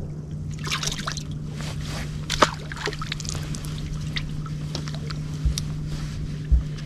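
Water trickling and lapping around a small fishing boat, over a steady low hum, with scattered clicks and knocks of handling in the boat and two dull bumps near the end.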